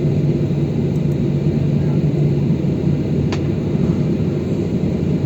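Steady low rumble of a Ryanair Boeing 737 jet airliner heard from inside the cabin, engines running with a constant hum, and one short click about three seconds in.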